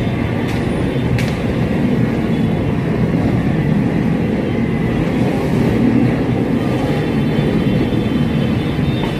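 Two sharp firework cracks in the first second and a half, over a loud, steady low rumble of street noise.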